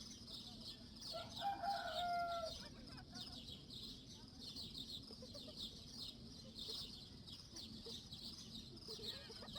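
A rooster crowing once, a single long call starting about a second in, over a steady high-pitched chirring background.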